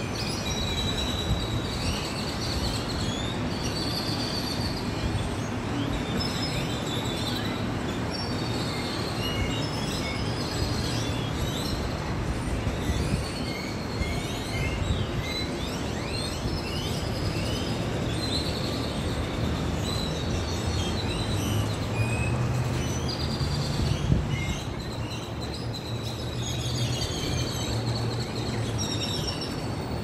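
A crowd of birds calling and chirping together, short high squeaks, whistles and chirps overlapping without a break, over a steady rumble of city traffic that swells for a while in the second half.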